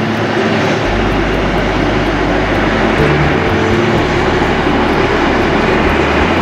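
Boeing 737-800's CFM56-7B jet engines running at taxi power as the airliner taxis past, a steady rush of engine noise.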